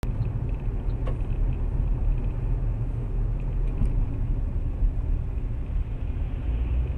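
Steady low rumble of engine and road noise inside a moving car, picked up by a dashcam microphone.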